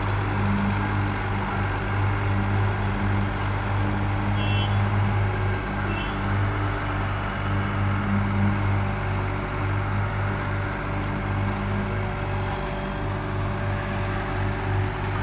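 Diesel engine of a slipform curb paver running steadily as it lays a concrete road divider, a constant low hum. Two brief high squeaks break in about four and six seconds in.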